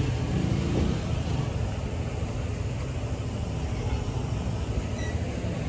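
Steady low rumbling outdoor background noise, with no distinct event standing out.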